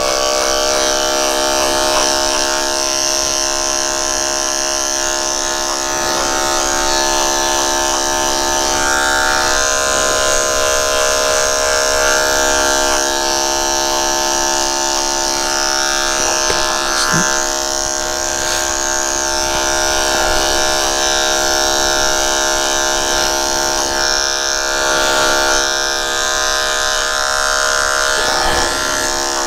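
Electric dog-grooming clippers running with a steady hum as the blade shaves through a Bichon frise's coat.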